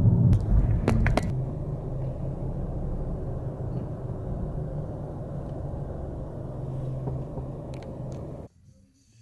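Car engine and road noise inside a moving car's cabin: a steady low drone, with a few clicks about a second in, cutting off suddenly near the end.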